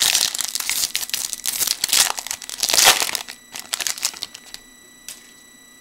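Wrapper of a trading card pack being torn open and crinkled by hand: dense crackling for about three seconds, then a few scattered crinkles and ticks. A faint steady high-pitched whine from a computer fan is left once the crinkling stops.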